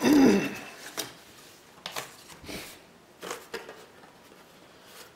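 Cardboard box flaps being opened and handled, with scattered scrapes, rustles and light knocks. It starts with a short, loud pitched squeak in the first half-second.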